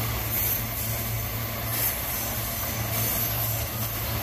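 Loaded ore gondola wagons of a freight train rolling past on the rails, over a steady low diesel engine hum.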